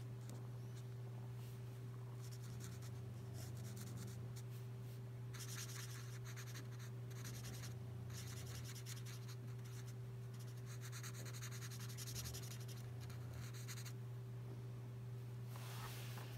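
Alcohol marker nib (L'emouchet Twin Marker) stroking over paper while colouring in a page, a faint scratchy rubbing that comes in several spells from about five seconds in. A steady low hum runs underneath.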